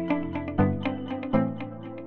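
Background music: plucked, guitar-like notes over a bass line with a steady beat.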